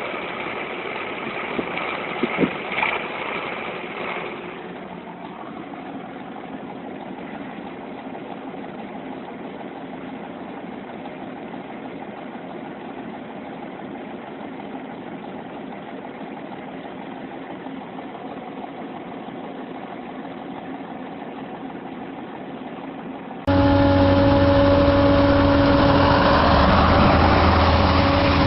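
Heavy machinery engine running steadily, with a few sharp knocks about two to three seconds in. Near the end it cuts abruptly to a louder engine running with a steady whine.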